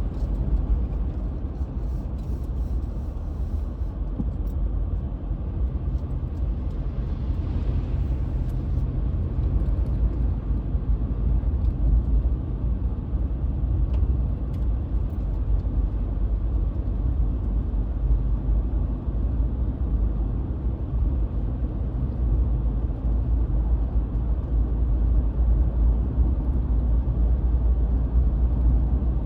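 Car driving at steady road speed, heard from inside the cabin: a constant low rumble of tyres and engine.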